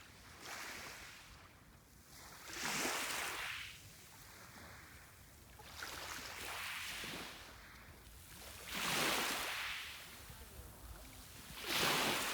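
Small sea waves washing onto the shore, a rising and falling hiss of surf about every three seconds, with a faint low rumble of wind on the microphone underneath.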